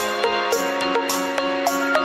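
Background music: an instrumental track with plucked notes over a steady beat.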